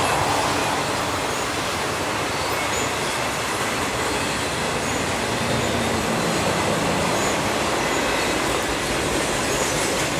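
Intermodal freight train of highway trailers on flatcars rolling past, its wheels making a steady rumble on the rails.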